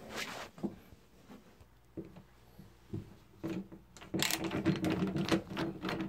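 Screwdriver backing out the screws of a door knob's mounting plate: a few scattered clicks and handling knocks, then from about four seconds in a dense run of rapid clicking and rattling.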